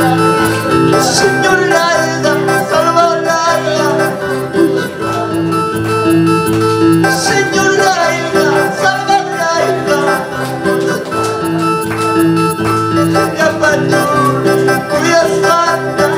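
Worship music played on an electronic keyboard, with chords, bass and melody, and a man singing along.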